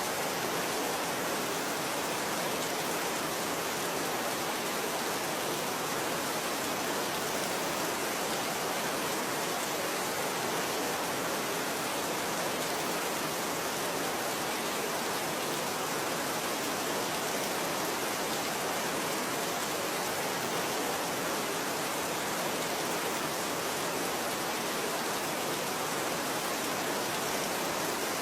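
Steady, even rain.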